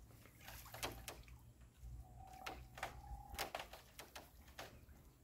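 Faint, scattered water splashes and drips, a handful of short sharp ones, as a bamboo lift net is handled in shallow canal water. A faint steady high tone sounds for about a second and a half in the middle.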